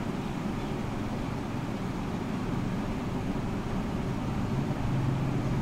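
Steady low background rumble and hiss, growing slightly louder with a low hum near the end.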